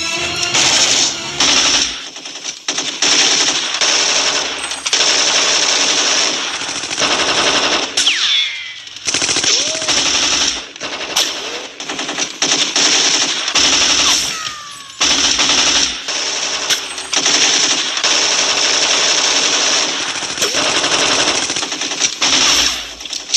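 Film sound-effect automatic gunfire in several long, continuous volleys with short pauses between them, and a few brief whistling glides mixed in.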